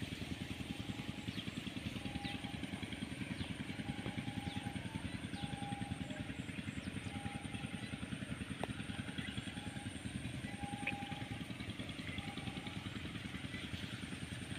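A small engine running steadily at idle with a fast, even pulse, under a faint, constant high-pitched insect-like drone.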